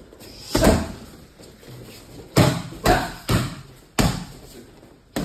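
Strikes landing on pads: five sharp thuds, three of them in a quick combination about half a second apart past the middle.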